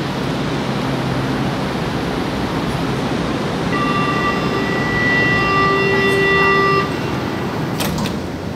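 Metro train running through a station with a steady rushing noise. About four seconds in, a horn sounds as a flat, steady tone for about three seconds, then stops suddenly.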